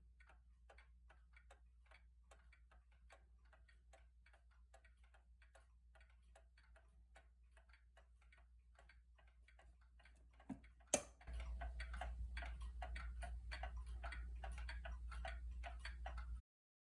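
Gilbert 'Leopard' kitchen mantel clock (circa 1891) ticking with a fast, steady beat; no alarm bell is ringing. About two-thirds of the way through there is a sharp knock, after which the ticking is louder over a low hum, and then the sound cuts off abruptly.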